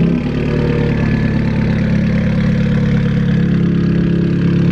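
Turbocharged FA20DIT flat-four of a Subaru Forester XT idling steadily through a catless downpipe and 3-inch Invidia N1 race exhaust, while it burns off CRC intake-valve cleaner.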